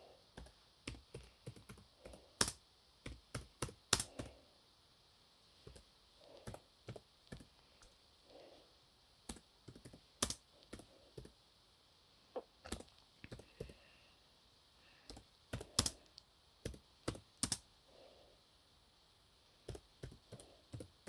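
Laptop keyboard keys clicking as a message is typed, in irregular runs of keystrokes broken by short pauses.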